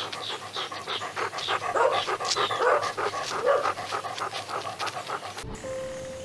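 A large dog panting rapidly, several quick breaths a second, that cuts off suddenly near the end, where a faint steady tone starts.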